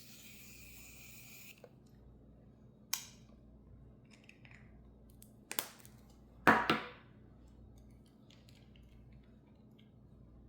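A short hiss, then a few sharp clicks and snaps, the loudest a quick double snap about two-thirds of the way through.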